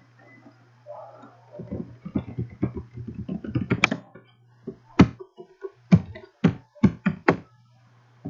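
Computer keyboard typing: a quick run of keystrokes, then about eight separate, sharper key presses, loud and close, over a faint low hum.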